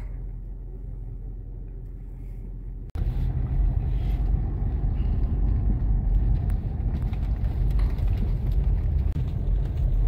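A car driving, heard from inside the cabin: a steady low rumble of engine and tyres. About three seconds in it drops out for an instant and comes back louder, with more road noise.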